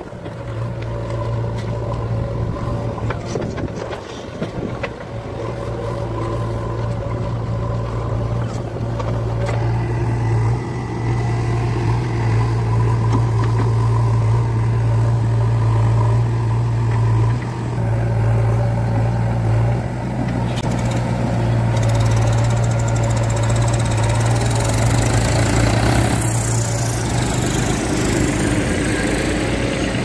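Diesel engines of a JCB backhoe loader and a Mahindra tractor running steadily, a continuous low engine hum, while the backhoe loads mud into the tractor's trolley.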